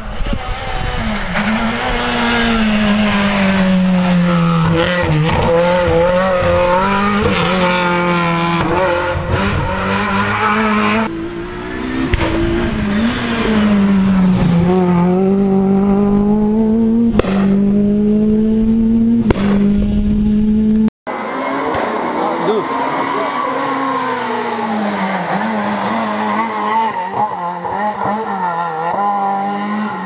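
Renault Clio R3 rally cars' two-litre four-cylinder engines driven hard on a stage, the revs climbing and dropping again and again through gear changes. There are two sharp cracks, and one car's sound cuts off abruptly about two-thirds through, where the next car takes over.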